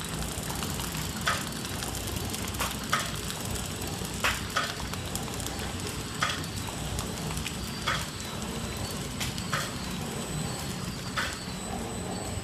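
250X down-paper flow-wrap (pillow pack) machine for wet tissues running, a steady mechanical whir with a thin high whine and a sharp clack about every one and a half to two seconds as it cycles.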